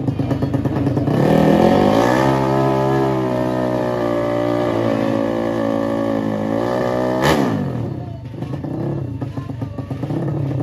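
Drag-racing motorcycle at full throttle down the strip, its engine pitch climbing and stepping through gear changes for about six seconds, then a sharp crack as it passes about seven seconds in, with lower engine noise afterwards.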